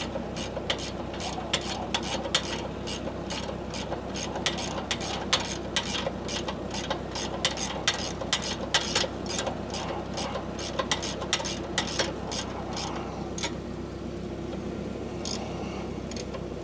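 A hand ratchet clicking in quick, even strokes, about three clicks a second, over a steady low hum. The clicking stops for about two seconds near the end, then resumes.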